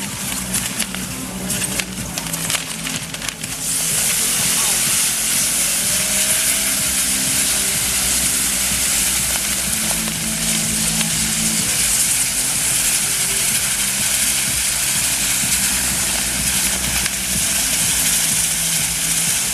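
Mechanized ground fireworks burning: dense crackling for the first few seconds, then from about four seconds in a loud, steady hiss of spark fountains driving the spinning wheels.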